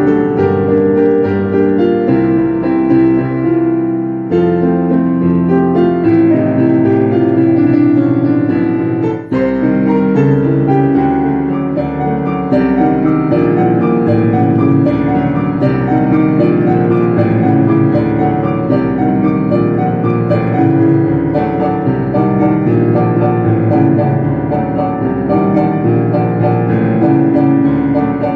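Piano music: notes and chords played continuously, with a brief drop in loudness about nine seconds in.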